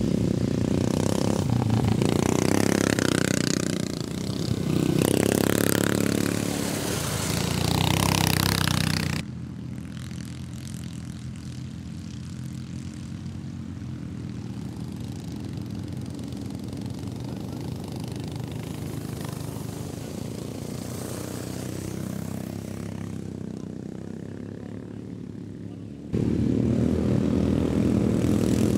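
Racing lawn mower engines running and revving close by, their pitch rising and falling. About nine seconds in the sound cuts to a much quieter steady hum, and near the end the loud engines cut back in.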